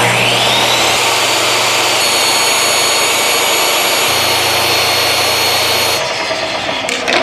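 DeWalt compact jobsite table saw switched on, its motor whine rising as the blade spins up. It then runs steadily while ripping a length of painted wooden trim, the sound easing a little about six seconds in.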